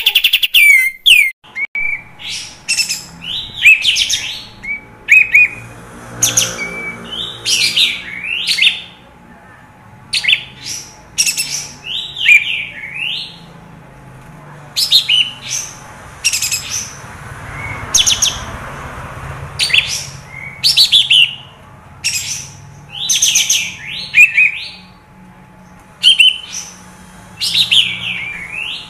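Olive-winged bulbul (kapas tembak) singing in full song: loud, short phrases of rapid, sweeping chattering notes, repeated with brief pauses of a second or two.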